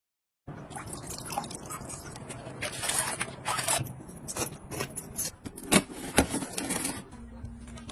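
Scraping and rustling of objects being handled, with scattered sharp clicks and taps, starting abruptly about half a second in.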